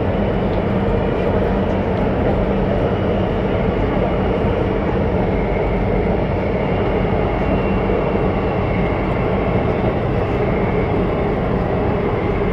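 Alstom Metropolis C751C metro train running between stations, heard from inside the carriage: a steady rumble of wheels and running gear with a faint high whine from the traction motors.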